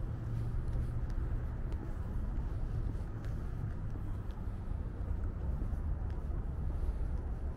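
Steady low rumble of city traffic, an even drone without breaks, with a few faint ticks above it.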